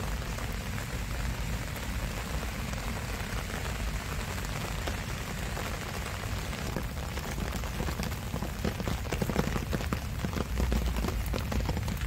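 Steady rain falling, an even hiss of patter on leaves; from about halfway, sharper drop ticks and low thumps join in.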